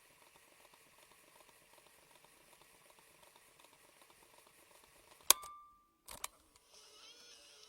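Fast-forward sound effect: a faint hiss with light crackle, then a sharp click about five seconds in, followed by a short beep, a moment of silence and two more clicks. Near the end a sped-up, high-pitched warbling sound starts.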